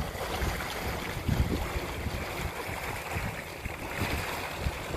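Wind buffeting the microphone over the steady rush of water in the wake of an electric-drive cabin cruiser under way. No engine note is heard.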